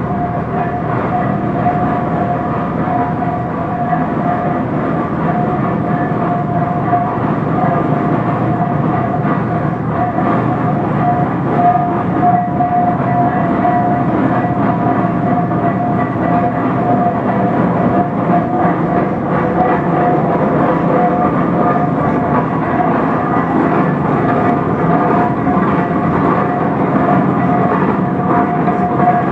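1917 Minneapolis 40-80 tractor's freshly rebuilt engine being rolled over by a flat belt on its belt pulley. The machinery makes a steady running sound with a constant high whine over it.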